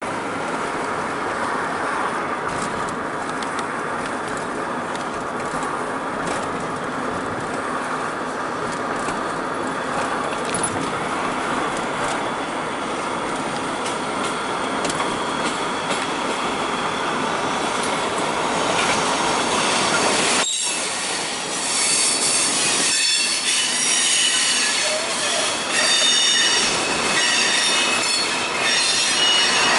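Freight train rolling steadily, heard from a car driving alongside, with the rumble of the cars and road noise mixed together. From about 21 seconds in, the freight cars' wheels squeal with several high pitches at once that waver and overlap.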